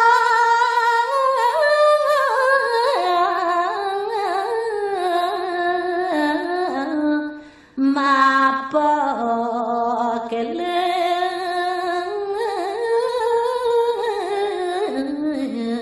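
A solo voice singing a Balinese geguritan (tembang) verse in long, slowly ornamented held notes, with a short break for breath about seven and a half seconds in.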